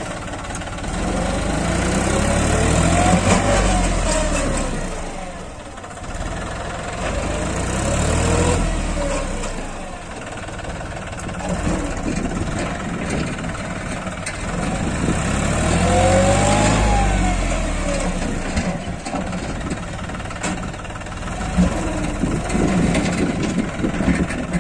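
John Deere tractor's diesel engine running steadily, rising in pitch and falling back about three times as it is revved and eased off.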